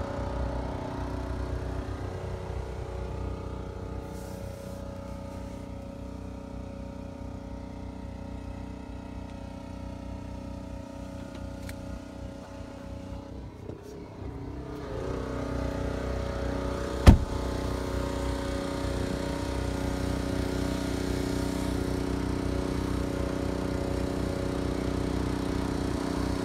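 The 2015 Volkswagen Golf TDI's 2.0-litre four-cylinder turbo diesel idles steadily. It is louder in the second half, and a single sharp thump comes about two-thirds of the way through.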